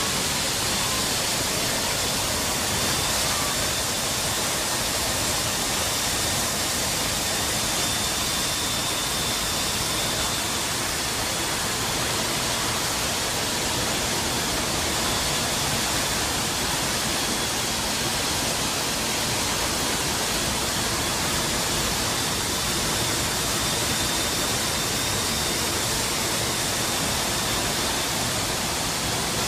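Steady rush of wind and engine noise inside a C-17's cargo hold in flight with the side paratroop doors open, carrying a faint high steady whine.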